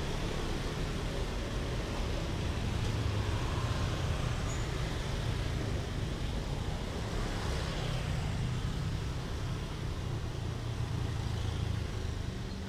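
Road traffic driving past: motorbikes and a small pickup truck, a steady mix of engine and tyre noise with a low rumble.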